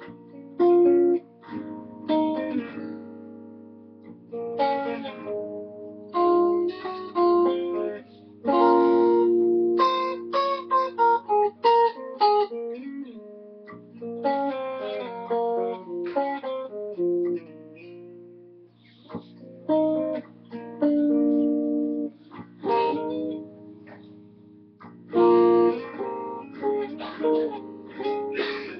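Ibanez RG1527 seven-string electric guitar with Seymour Duncan Full Shred 7 pickups, played in phrases of chords and quick runs of single notes. The notes ring out and die away in short pauses between phrases.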